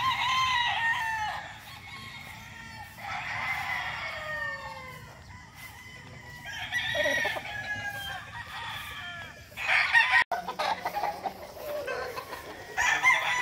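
Gamecock roosters crowing in turn: about five long crows from several birds, one of them loud and close about two-thirds of the way through.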